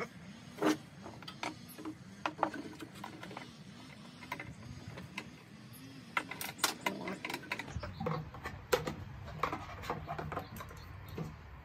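Irregular small clicks and knocks of hands working at the air compressor's wiring, wiggling push-on wire connectors loose from the pressure switch.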